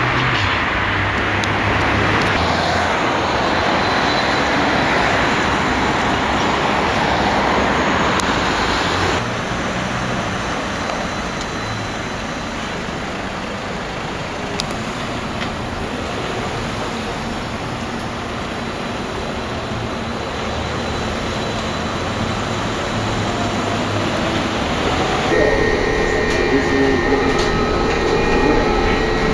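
Street traffic noise as a Solaris Trollino 12 trolleybus drives off. After a cut about nine seconds in it gives way to quieter road noise. Near the end a steady electric whine of several tones begins, as inside the trolleybus.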